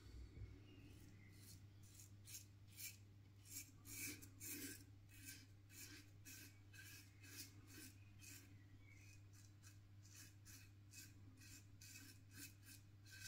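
RazoRock Hawk V2 single-edge safety razor with a Feather ProGuard blade scraping through lathered stubble in short, quick strokes, several a second: the faint crackling rasp of the blade cutting whiskers on a with-the-grain pass.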